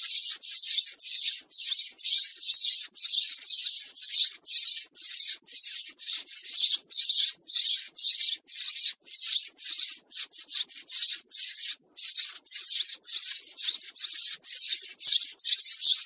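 House sparrow chirping: a continuous, rapid series of short chirps with only brief gaps between them.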